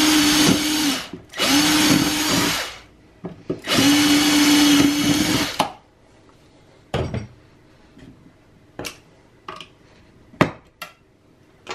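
Handheld cordless drill drilling out the fasteners in a perforated metal speaker plate: three bursts of the motor running at a steady pitch with the bit grinding, the last stopping about five and a half seconds in. After that come a few light clicks and knocks of parts being handled.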